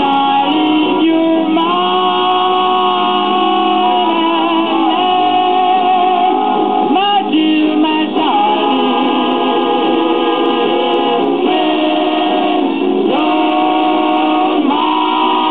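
A 78 rpm shellac record of a vocal group singing, voices holding long, wavering notes, played on a 1947 Sears Silvertone model 7070 radio-phonograph through its rebuilt crystal pickup and tube amplifier.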